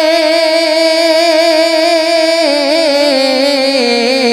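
A singer's voice holding one long note of a naat with a wavering vibrato, stepping down in pitch near the end.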